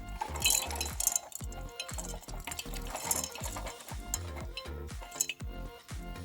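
Background music, with light scraping, stirring and clinking of metal over it.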